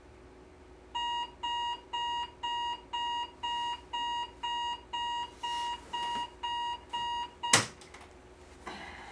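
Electronic alarm clock beeping, about two beeps a second, starting about a second in. The beeping stops at a loud knock as it is switched off by hand, followed by a soft rustle of bedding near the end.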